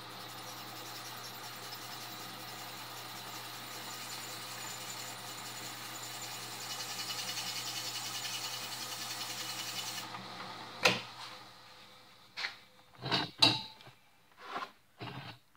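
Drill press running with its bit grinding into the workpiece under cutting oil, the grinding growing louder and brighter, then stopping suddenly; the bit is barely getting anywhere. A sharp click follows, then a few scattered knocks and clicks.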